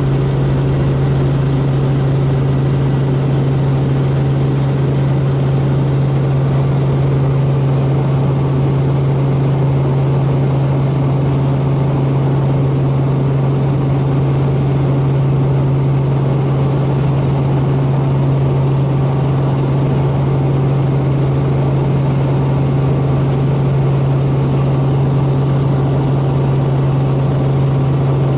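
Robinson R44 helicopter in flight, heard from inside the cabin: the loud, steady drone of its six-cylinder Lycoming piston engine and rotors, led by a strong low hum that holds one pitch.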